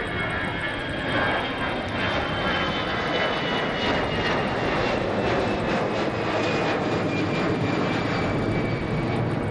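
Airbus A320-214 airliner's CFM56-5B turbofan engines at takeoff climb power, a loud steady jet rush with a high whine that slowly drops in pitch as the aircraft passes and climbs away.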